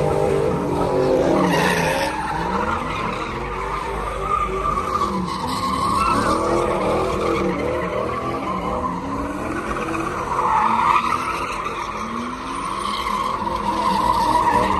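A car drifting sideways with its tyres squealing in a long, wavering screech. Its engine revs rise and fall underneath.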